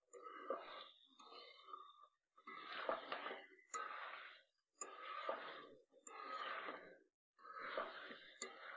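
Chicken pieces sizzling in hot oil in a metal wok as they are stirred and turned with a spatula, browned in oil alone before any water goes in. It comes as a run of hissing sizzle-and-scrape strokes about a second long each, with short breaks between, and a few faint clinks of the spatula.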